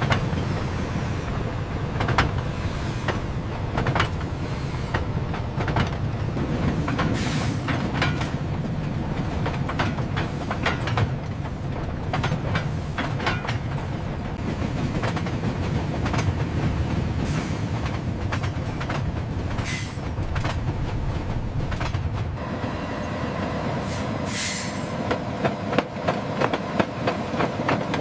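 A railway train rolling along the track: a steady low rumble with wheels clicking and knocking over rail joints and some faint wheel squeal, and a short hiss near the end.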